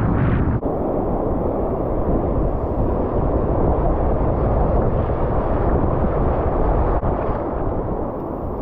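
Wind buffeting the microphone over the rush of breaking surf: a loud, steady, rumbling noise with a brief break about half a second in.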